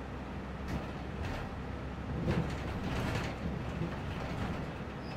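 City bus interior with the engine running steadily. A couple of knocks come about a second in, then a louder hiss of air for about a second, as the bus's pneumatic doors work.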